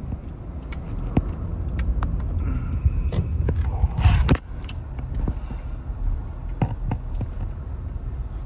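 Car-cabin rumble from an engine and tyres at low speed, with scattered light clicks and one loud rubbing knock about four seconds in.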